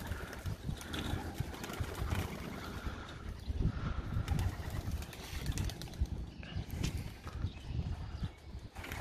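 Pigeons at a loft cooing softly, with scattered wing flaps as birds take off and fly out.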